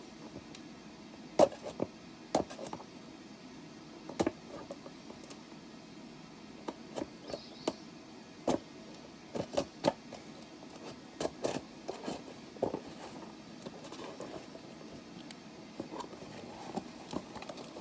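Hard-to-open parcel packaging being worked at by hand: scattered, irregular clicks and knocks, the sharpest about a second and a half in.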